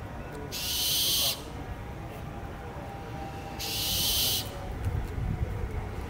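Barn owl giving two harsh, hissing screeches, each just under a second long and about three seconds apart, each swelling slightly and then cutting off sharply.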